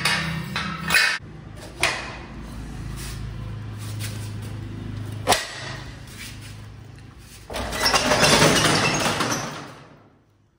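A key working the lock of a metal gate, with sharp clicks and knocks. Later, about two and a half seconds of loud rattling and scraping that fades away near the end.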